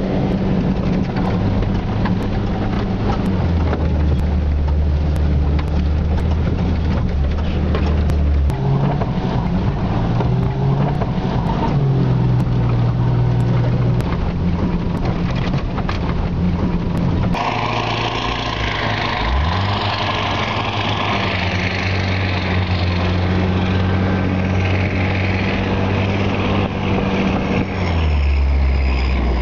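A 4x4's engine running under way, heard from inside the cab as it follows another truck through snow. The pitch holds steady for stretches, then steps up and down with the throttle; after a break about two-thirds of the way in it climbs steadily, and it drops again near the end.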